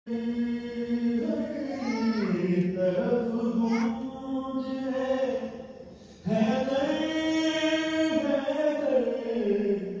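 A single voice chanting a devotional song in long, drawn-out, melismatic phrases, with a short break about six seconds in before the next phrase begins.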